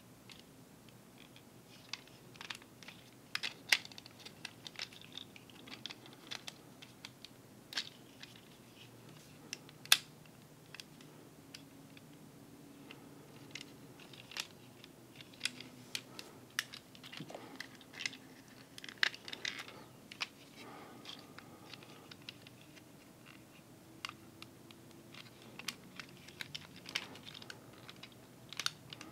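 Small plastic clicks and snaps of a Transformers figure being transformed by hand, as joints and panels are moved and clicked into place. The clicks come irregularly throughout, with two sharper snaps about 4 and 10 seconds in.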